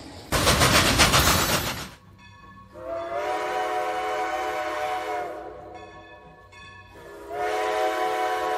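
A loud rushing burst of noise lasting about a second and a half, then two long blasts of a multi-tone train horn, each held about two and a half seconds.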